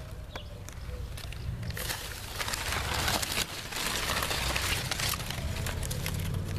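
Trachycarpus palm fronds and flower stalks rustling and scraping against the camera as it pushes into the palm's crown, over a steady low handling rumble. The rustling is loudest from about two seconds in until shortly before the end.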